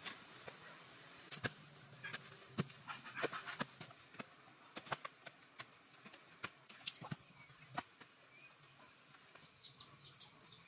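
Scattered sharp clicks and knocks, most of them in the first two-thirds, then a steady high insect trill that starts about two-thirds of the way in and continues.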